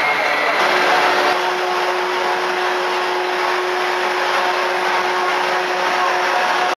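Steady, loud rush of air from an indoor-skydiving vertical wind tunnel's fans, with a steady hum that sets in about half a second in and stops shortly before the end.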